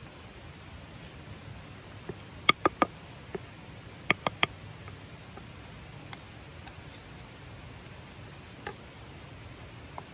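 A wooden spatula knocking against the clay cooking pot: three quick, slightly ringing taps about two and a half seconds in, and three more about four seconds in.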